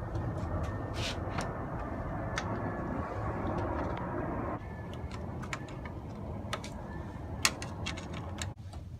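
Scattered sharp clicks and taps of hand work on the hose and plastic parts in a car's engine bay, over a steady low rumble. The rumble thins a little about four and a half seconds in, and the sharpest click comes near the end.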